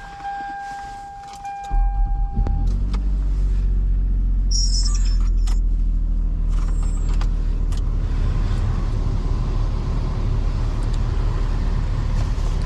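A 2005 Toyota Highlander's 3.3-litre V6 starting up cold about two seconds in, then settling into a steady idle. Before the start a steady electronic tone sounds, and it stops just after the engine catches.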